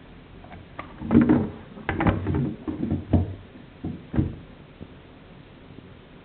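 Kitchen scissors cutting up a raw whole chicken over a stainless steel sink drainer: a run of snips and knocks starting about a second in and stopping after about three seconds.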